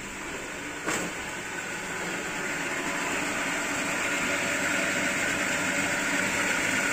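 Shimizu jet water pump running under test, a steady hiss of water rushing through the pump and pipes over its motor hum, growing gradually louder; a single click about a second in.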